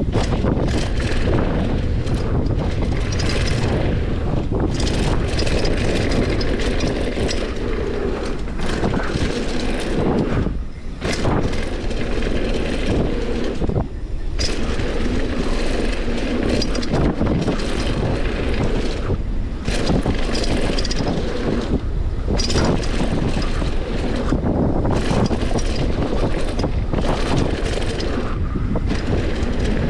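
Wind buffeting the microphone of a GoPro on a mountain bike descending a dirt singletrack, over the rumble of the tyres and the rattle of the bike on rough ground. It dips briefly twice around the middle.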